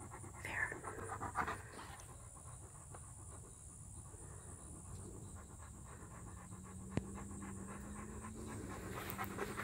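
Alaskan Malamute panting close by, clearest in the first couple of seconds. A faint steady low hum comes in about halfway, and there is one sharp click later on.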